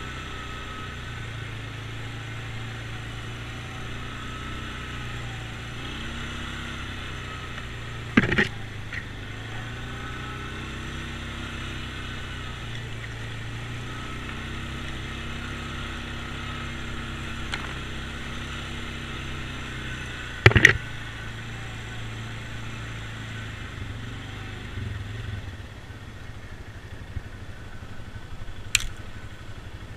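ATV engine running at a low, steady speed, with two sharp knocks about eight and twenty seconds in and a lighter tick near the end.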